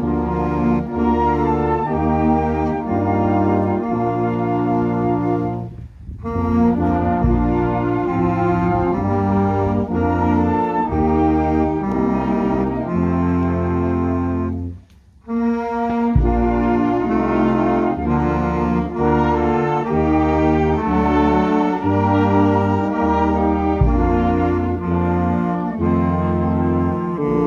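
Concert wind band of tuba, euphonium, saxophones, clarinets and drum kit playing a piece, with two short breaks in the music, about six seconds in and near the middle.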